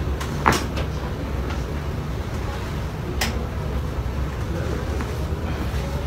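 Spinal joints cracking during a chiropractic back adjustment: a loud crack about half a second in, a couple of fainter pops just after, and another sharp crack about three seconds in. A steady low rumble runs underneath.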